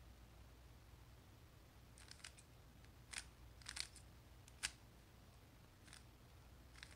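Stickerless 3x3 speed cube being turned by hand: short plastic clicks of its layers snapping round, a handful of them starting about two seconds in.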